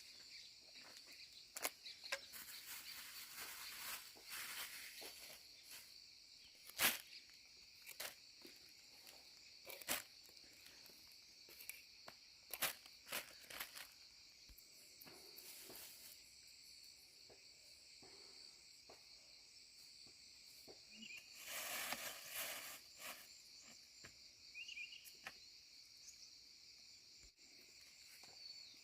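Faint, steady outdoor insect chorus buzzing high and unbroken, with scattered light clicks and a louder rustle about three quarters of the way through.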